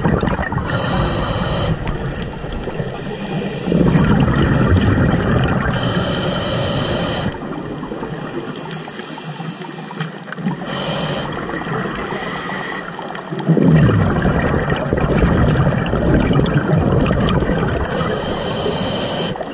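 A scuba diver breathing through a regulator underwater: short hissing inhalations alternating with longer gurgling bursts of exhaled bubbles, the heaviest bubbling starting about four seconds in and again about fourteen seconds in.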